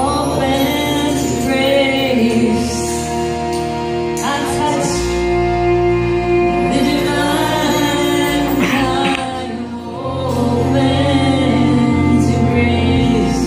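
Live kirtan music: women's voices singing a chant melody in long phrases over a steady drone of held instrumental tones.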